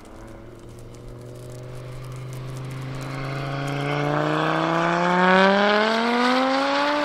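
Audi TT RS Plus's tuned 2.5-litre turbocharged five-cylinder engine (GTX35 turbo, over 700 hp) pulling hard under full-throttle acceleration from a rolling start, its note climbing steadily in pitch with no gear change. It grows much louder as the car nears and passes, loudest about five and a half seconds in.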